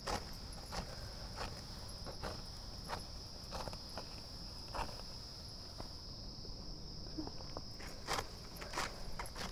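Serrated hand sickle cutting through bunches of dry paddy stalks close to the ground: about a dozen short, crisp snaps and rasps, roughly one every second, with the rustle of the gripped stalks. A steady, high insect chirring runs underneath.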